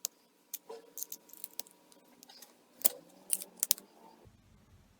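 Small metal hand tools being handled: a Stanley multitool and screwdriver clicking and clacking, in a dozen or so separate sharp clicks, the loudest a little before the halfway point and a quick cluster just after it.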